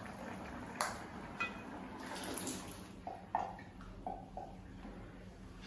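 Thick cooked toor dal scraped out of a small enamel pot with a wooden spatula and sliding into a pan of sambar: soft wet pouring, with a few light knocks and short ringing scrapes of the spatula against the pot.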